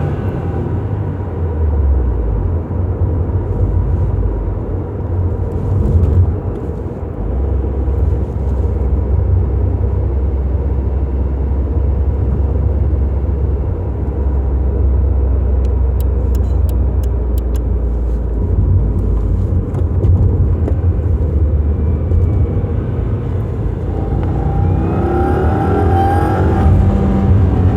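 2015 Subaru WRX's turbocharged 2.0-litre flat-four engine and road noise heard inside the cabin while driving, a steady low rumble. About 25 seconds in the engine revs up with rising pitch under acceleration, around the 4500 rpm range where the owner hears a rattle/scraping sound he fears is not normal.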